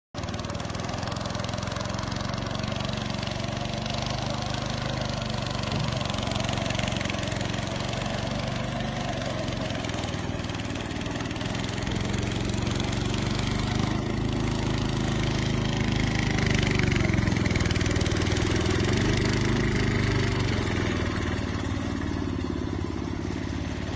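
Engine of a Dynamark riding lawnmower converted for racing, running steadily, its pitch shifting a little with the throttle in the second half.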